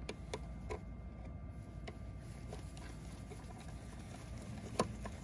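A screwdriver turning the drain screw back into an Evinrude outboard's lower unit (gearcase): a few faint metal clicks and scrapes, three in the first second and the loudest one near the end, over a steady low rumble.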